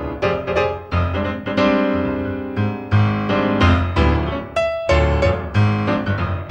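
Piano music: a quick succession of struck notes over a low bass line.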